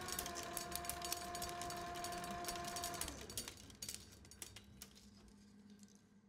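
Reel machine running: a steady hum with dense crackling clicks. The hum sags slightly in pitch and stops about three seconds in, and the crackles then thin out and fade away.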